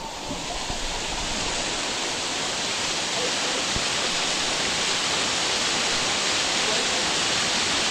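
Waterfall: a steady rush of falling water that grows louder over the first few seconds, then holds steady.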